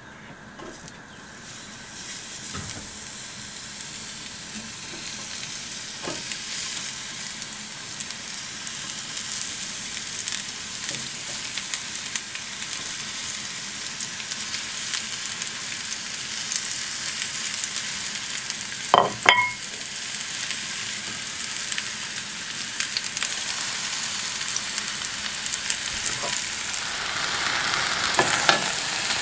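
Grey oyster mushrooms frying in very hot oil: a steady sizzle that builds as the clump goes into the pan. About two-thirds of the way through there is a brief metallic clink. Near the end the sizzling grows louder as a heavy steel pan is set on top to press the clump down.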